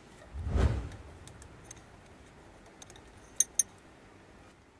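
Metal spanner clinking on the brake pipe union at the front brake caliper: a dull thump about half a second in, light metallic ticks, then two sharp clinks in quick succession near the end.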